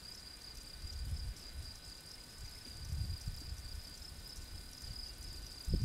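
A cricket trilling steadily at a high pitch, with soft low rumbles around it and a louder low rumble starting just before the end.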